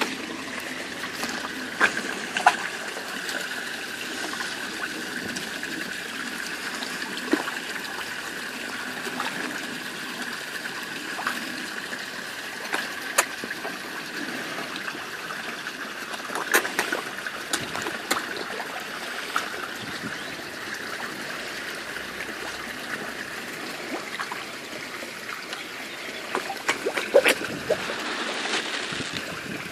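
Water trickling steadily into a garden pond from an inflow pipe, with scattered short splashes and slurps from fish feeding at the surface, most frequent near the end.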